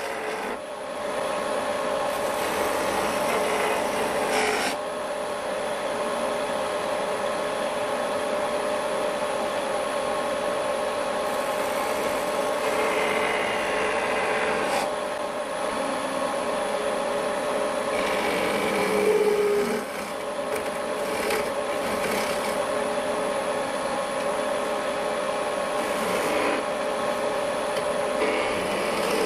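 Wood lathe running with a steady hum while a skew chisel cuts the spinning wooden blank, a rasping, shaving cut that swells and eases as the tool is worked along the piece.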